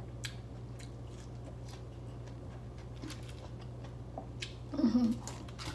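A person chewing pieces of fresh pineapple, with scattered faint small clicks, over a steady low hum. A brief vocal sound comes near the end.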